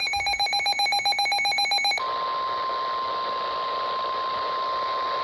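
An electronic alarm beeping in a rapid, buzzy pulse, typical of a weather radio receiver's own alert. About two seconds in it switches abruptly to the steady 1050 Hz NOAA Weather Radio warning alarm tone over radio hiss, the tone that heralds a warning broadcast.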